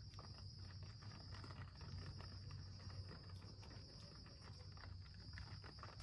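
Faint, steady high-pitched insect chirring, with scattered small clicks and rustles.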